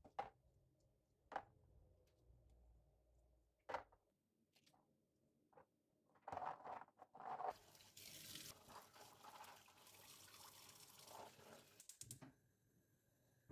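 A few light clicks as fresh speckled beans are shelled and dropped one by one into a plastic tub, then a short clatter, followed by a steady hiss from about eight seconds in.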